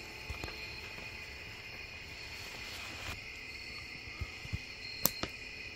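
Steady high-pitched chorus of night insects singing outside the tent, with a few sharp clicks and light knocks from gear being handled: two near the start and several more in the last two seconds, the loudest about five seconds in.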